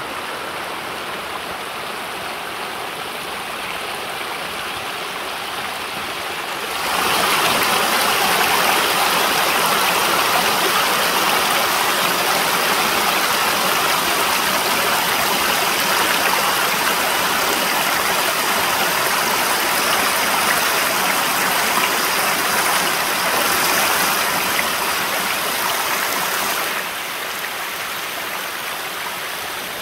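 Small rocky hill stream rushing and splashing over stones and small cascades. The rush grows louder about seven seconds in and drops back again a few seconds before the end.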